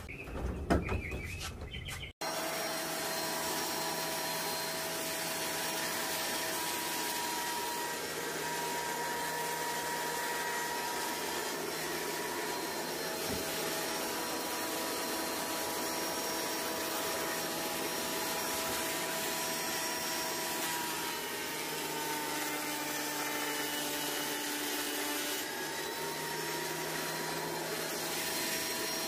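A couple of brief knocks, then from about two seconds in a Delta Shopmaster TP300 12-inch portable planer running steadily: a motor whine over a rushing hiss. It is a test run of freshly changed cutter blades.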